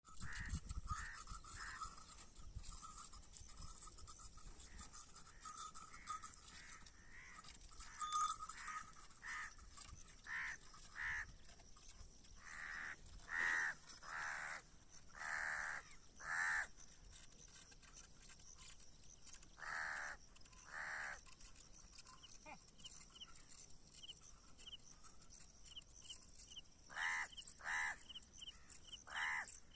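Crows cawing again and again in irregular runs of short, harsh calls, some bouts quick and clipped, others slower with longer calls.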